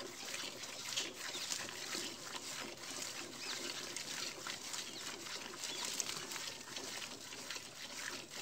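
Cow being milked by hand into a steel bucket: rhythmic squirts of milk hissing into the pail, one after another.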